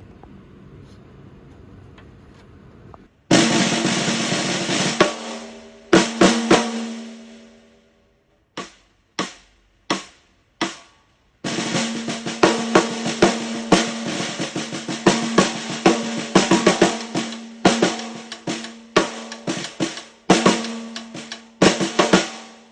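Pearl Masterworks 14x5.5 custom snare drum with a black limba over hybrid shell, played solo. After a few quiet seconds comes a roll, a couple of accented hits, four spaced single strokes left to ring out, then a long passage of rolls and accented strokes, with a ringing note under each crack.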